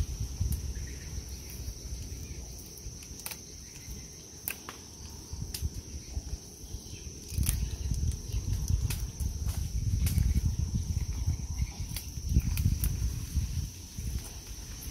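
A steady high insect buzz, with scattered sharp clicks and rustling as branches and bunches of green Burmese grapes are handled and picked. A low rumbling noise rises from about halfway through.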